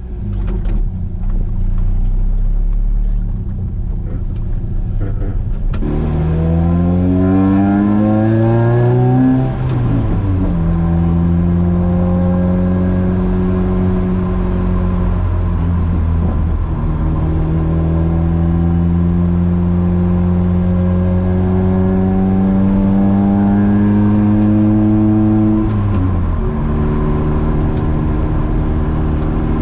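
Opel Speedster's four-cylinder engine through a Larini exhaust: a low rumble for the first few seconds, then revs climbing hard under acceleration. A gear change drops the pitch about ten seconds in, followed by long, gradual rises in revs with dips around fifteen and twenty-six seconds.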